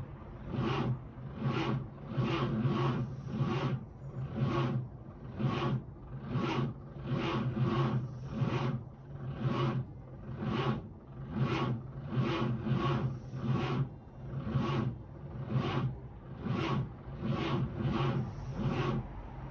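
The starter motor of a 1946 Chevrolet Fleetmaster's inline six turns the engine over slowly on its 6-volt system, with a steady rhythmic chug of about two beats a second and no firing. It is too slow a crank, and no fuel is reaching the carburettor.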